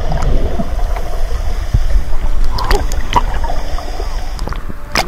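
Sea water heard through a camera held under and at the surface: a muffled low rumble with bubbling and scattered clicks of splashing, and a sharper splash near the end as the camera breaks the surface.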